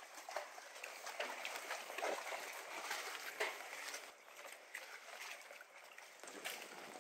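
Footsteps on wooden dock planks, irregular light knocks over a steady hiss of wind and lagoon water.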